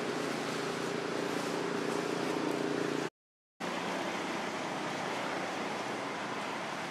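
Steady outdoor background noise, hiss-like, with a faint low hum in the first three seconds; it drops out to complete silence for about half a second around three seconds in, then the steady noise returns.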